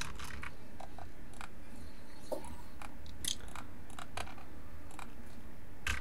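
Scattered single clicks from a computer keyboard and mouse: a few sharp keystrokes and clicks at irregular intervals over a steady low hum.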